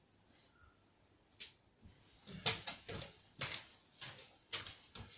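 Faint scattered clicks and knocks with soft rustling from movement around a Subbuteo table, one sharper click about a second and a half in.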